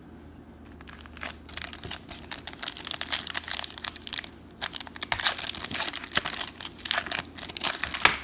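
Foil trading-card pack being torn open and its wrapper crinkled by hand. It starts about a second in as quick crackles, with a short pause about halfway through.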